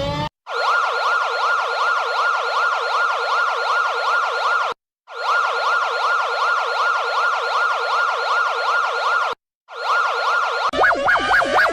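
Electronic emergency-vehicle siren in a fast yelp, about five rising-and-falling sweeps a second. It sounds in three bursts of about four seconds with short breaks between. Near the end a different, choppier warbling siren-like sound cuts in.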